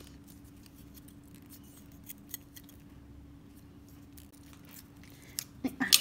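Small plastic model-kit parts handled between the fingers: a couple of faint clicks about two seconds in, then a quick cluster of plastic clicks and taps near the end, over a faint steady hum.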